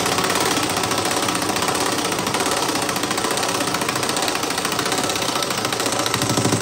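Impact wrench hammering continuously, driving the screw of a BeadBuster XB-450 bead breaker to force its shoe down and break the bead of an ATV tire. The hammering cuts off abruptly at the end.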